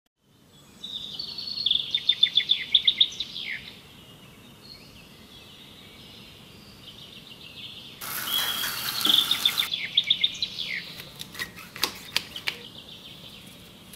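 A songbird chirping and singing in repeated fast, high trills. A short burst of hiss comes a little past halfway, and a few sharp clicks follow near the end.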